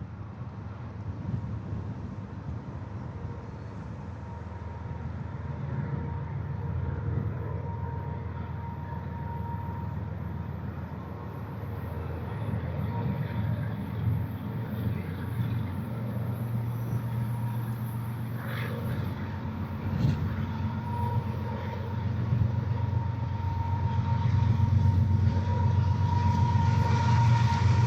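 Approaching BNSF intermodal freight train: the diesel locomotives' low rumble grows gradually louder, with a thin steady high tone at times.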